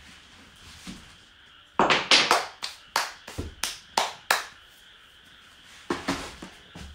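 A quick run of about nine sharp hand slaps or claps, starting about two seconds in and ending around four and a half seconds, with two more about six seconds in.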